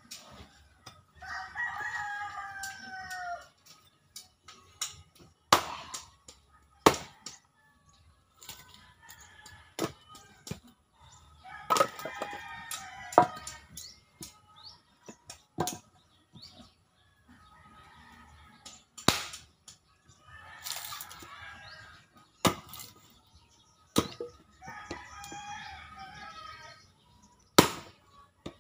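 An axe splitting firewood on a chopping block, making about ten sharp cracks a few seconds apart. The loudest crack comes near the end. Between the strikes, roosters crow about four times.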